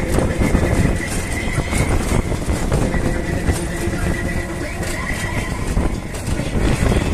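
Auto-rickshaw running along a road, heard from inside its open passenger cabin: the engine's steady running with a rapid rattling of the body and a faint steady whine.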